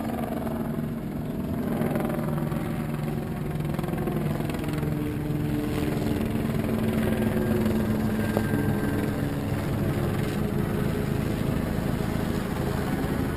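A motorboat engine running steadily at low speed, a low hum that drifts slightly in pitch, over wind and water noise.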